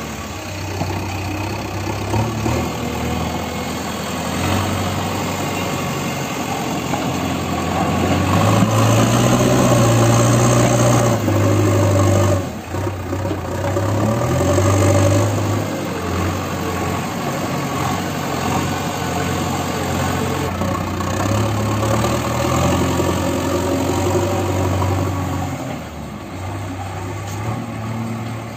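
JCB 3DX backhoe loader's diesel engine running as the machine drives and works its front loader bucket. It revs up under load for a few seconds about eight seconds in, dips briefly, revs again around fourteen seconds while the bucket digs into the soil pile, and eases off near the end.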